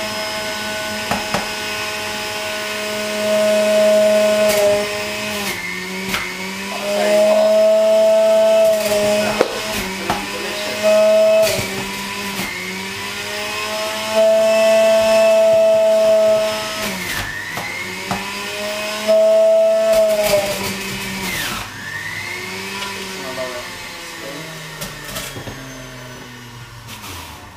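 Centrifugal juicer motor spinning at high speed and grinding produce as it is pushed down the feed chute. Its whine dips in pitch and recovers again and again, with five louder grinding spells. Over the last several seconds the pitch slides lower and the sound fades.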